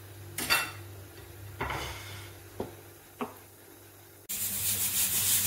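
A few brief hisses and two ticks, then about four seconds in a stovetop pressure cooker's whistle cuts in with a sudden loud hiss of escaping steam. Pressure has built and the weight is lifting to vent. This is one of the whistles counted to time the boiling vegetables.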